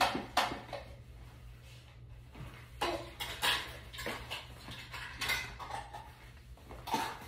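Scattered light knocks and clinks of small objects being handled, coming in short clusters.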